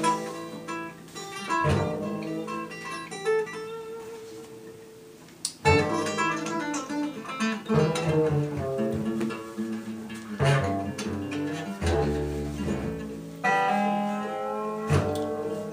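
Music: a strummed acoustic guitar, chords struck every second or two and left ringing.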